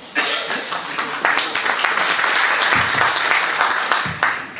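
Audience applauding, a dense clapping that starts just after the opening and dies away about four seconds in. Near the end there is a low thump from the table microphone being handled.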